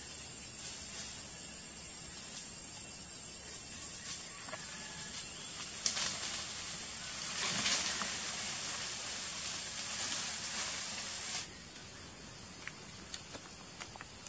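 Steady high-pitched buzzing of forest insects, swelling louder for a few seconds in the middle, with a few faint clicks.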